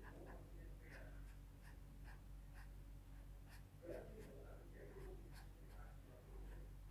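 Felt-tip marker rubbing on paper in quick, repeated colouring strokes, faint, over a steady low hum.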